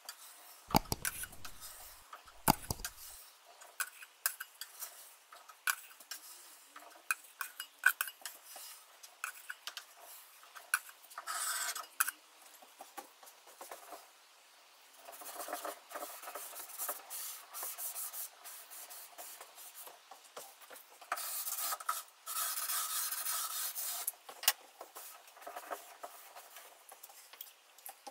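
Stripped finish being scraped and scrubbed off a teak veneer top, softened by paint stripper: irregular scraping strokes and small clicks of the scraper, with longer stretches of steady scrubbing later on. A couple of low thumps near the start.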